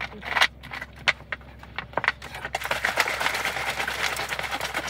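Mentos going into a 2-litre plastic bottle of Diet Coke: a few clicks and crinkles, then from about two and a half seconds in a steady fizzing hiss with fine crackling as the soda foams up.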